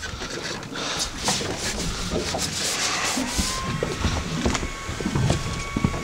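Rubbing and light knocks, with a faint steady whine setting in about halfway through.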